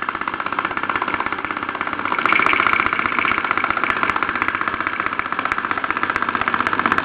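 Mersey No. 51 toy steam engine running steadily under steam, its exhaust beats coming in a fast, even rhythm, a little louder from about two seconds in, with a few faint ticks.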